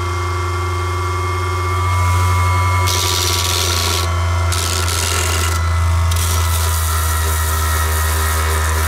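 Saker mini cordless polisher running steadily at speed 6 with a sanding pad. From about three seconds in, gritty rubbing comes and goes as the spinning pad is pressed against a copper pipe.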